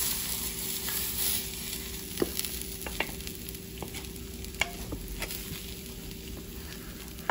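Curry spices and onion frying in olive oil in a hot nonstick pan, with a steady sizzle. A wooden spoon scrapes tomato paste out of a stainless steel bowl into the pan, giving a few light taps and clicks.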